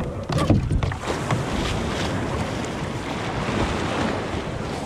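Water splashing and rushing against a paddleboard's hull as it is paddled out through small surf, with a few sharper splashes in the first second or so and wind buffeting the microphone.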